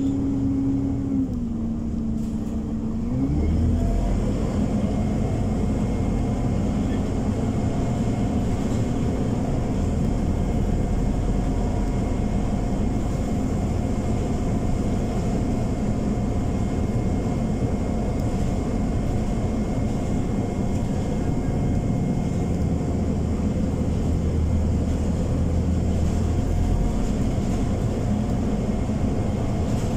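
Scania Omnicity diesel city bus heard from inside the passenger cabin. The engine note climbs about three seconds in, then gives way to a steady, louder low rumble as the bus drives on, with a continuous whine running through it, which the uploader takes for the engine cooling fan running.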